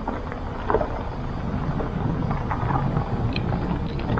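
Kia K3 rolling slowly over an unpaved gravel lane: a steady low rumble with scattered crunches and knocks from the tyres on loose stones.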